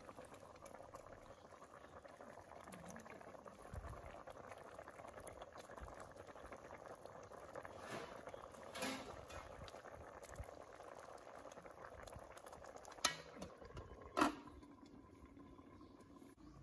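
Carp stew in an aluminium pot bubbling at a steady boil, the long simmer that softens the fish bones. About two seconds from the end the pot's aluminium lid clinks on a couple of times, and the bubbling becomes more muffled.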